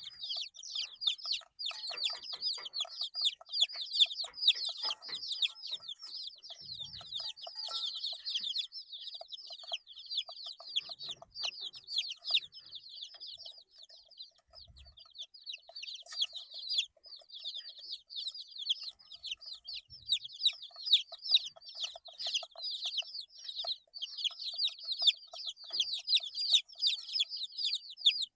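A brood of 8-day-old baby chicks peeping continuously, many short high-pitched chirps overlapping, with a few soft low thumps.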